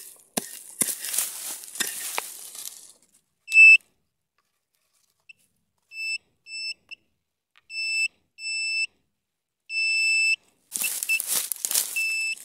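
Scraping and crunching in soil, roots and dry leaves for the first few seconds, then a handheld pinpointer metal detector giving a string of high beeps, some short and some held for about half a second, as it finds the metal target in the dirt. A single very loud beep about three and a half seconds in is the loudest sound. More scraping follows near the end, then one more beep.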